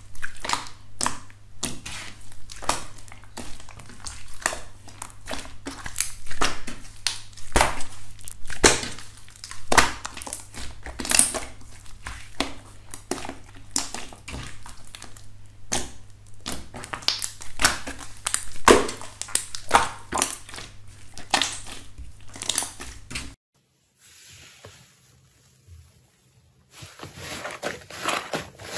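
Hands squeezing and pressing glittery slime, making a dense, irregular run of pops and crackles. The sound drops almost to nothing for a few seconds near the end, then the squishing starts again.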